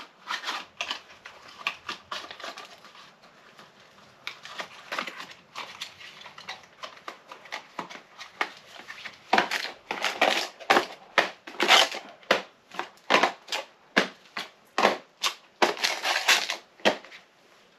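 Packaging being handled, with repeated crinkling and rustling, sparse at first and then busier and louder about halfway through.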